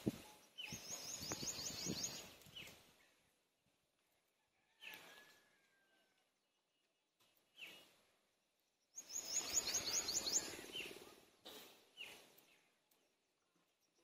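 Outdoor bird song: twice a rapid, high trill of many quick repeated notes, with scattered single chirps between, over a soft rustling noise.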